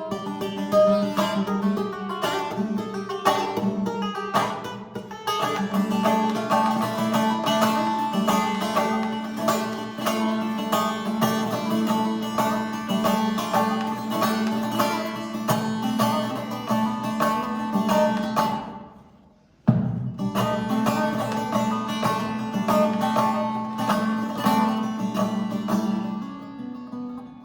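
Instrumental music of plucked strings over a held low note. About two-thirds through it fades away to near silence for a moment, then comes back in suddenly.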